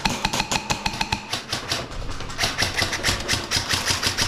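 Airsoft guns firing, a steady run of sharp clicks at about ten a second.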